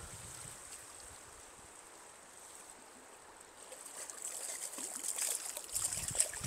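Stream water running softly, then from about four seconds in, louder irregular splashing at the water's surface.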